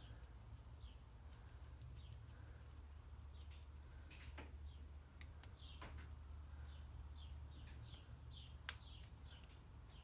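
Faint clicks and scraping of a small flathead screwdriver tightening the screw of a screw terminal connector on a wire, with one sharp click near the end. A low steady hum lies underneath, and faint short high chirps come and go.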